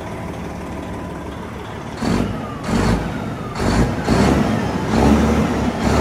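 Detroit diesel truck engine, being built for about 1,000 horsepower, idling steadily and then, about two seconds in, revved in a run of quick throttle blips, five or six in the last four seconds. A high whistle falls away after some of the blips.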